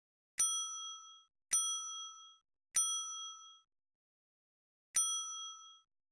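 A bell-like ding sound effect played four times, the same sample each time, each struck sharply and ringing out for just under a second: an Android app's button-click sound firing on each press.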